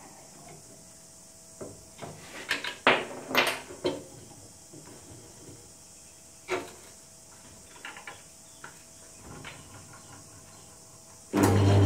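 Scattered clicks and knocks as the pillar drill's chuck and table are handled and an 8 mm bit is fitted. Near the end the drill press motor is switched on and runs with a steady hum.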